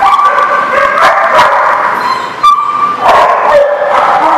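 Several dogs barking and yipping as they play-wrestle, their calls overlapping almost without a break, with a short lull about two seconds in.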